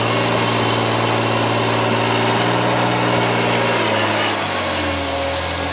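Rock crawler buggy's engine running steadily while climbing a steep rock ledge, its revs dropping about four seconds in.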